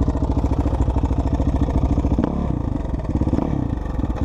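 Suzuki RM-Z450 carbureted single-cylinder four-stroke dirt bike engine running, with an even chuffing beat of firing pulses and a short dip in the note about two seconds in. The owner fears the noise it makes is rod knock; the seller says it is normal for these Suzukis.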